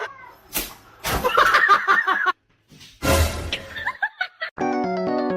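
A sharp slap early on, then a person laughing in bursts, and keyboard-style background music starting near the end.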